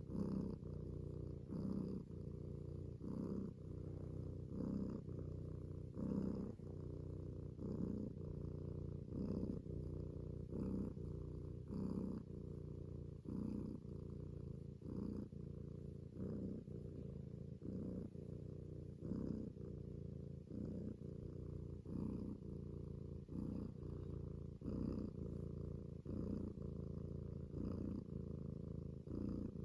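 Domestic cat purring contentedly and continuously, the purr swelling in a regular rhythm about every second and a half with each breath.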